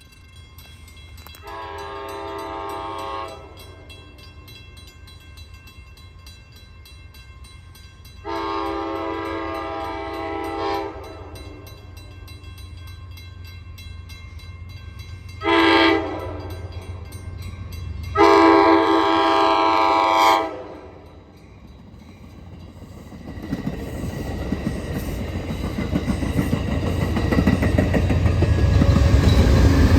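A P40 diesel locomotive's air horn sounds the grade-crossing signal: long, long, short, long. The train then comes through the crossing, the noise of its engine and wheels on the rails building steadily and loudest near the end.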